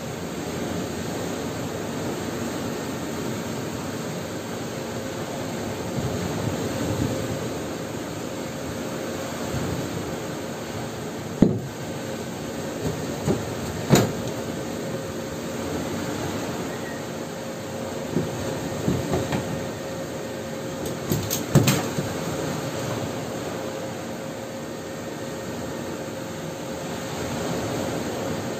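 Steady noisy background with a faint hum under it, broken a few times through the middle by short, sharp clinks of steel parts and tools being handled.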